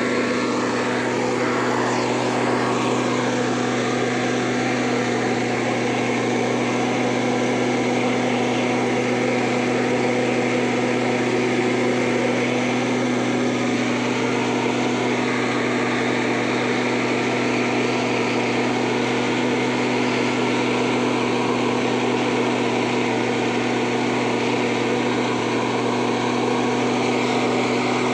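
A small engine running steadily at constant speed, a low hum under a wide hiss that does not change.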